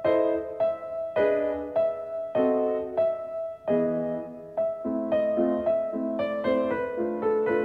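Background piano music: a slow melody of single notes and chords that turns busier, with quicker notes, about five seconds in.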